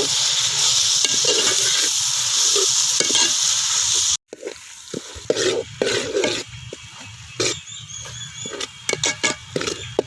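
Onions and green chillies sizzling in hot oil in a pan while a spoon stirs them. About four seconds in the sizzle cuts off abruptly, and then comes quieter stirring with scattered clinks and scrapes of the spoon against the pan.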